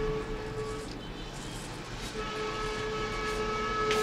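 A horn sounding two long steady notes, the first ending about a second in and the second starting about two seconds in. A sharp click near the end.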